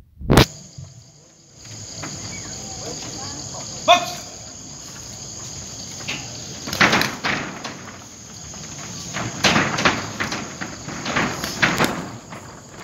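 A steady, high-pitched chorus of night insects runs under ringside spectators' voices and shouts, which swell several times. There is one sharp knock about half a second in.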